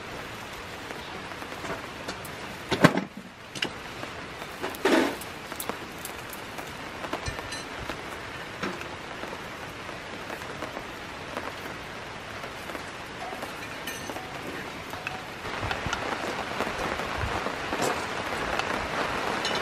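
Steady rain falling, growing heavier about fifteen seconds in. Two sharp knocks come about three and five seconds in and are the loudest sounds.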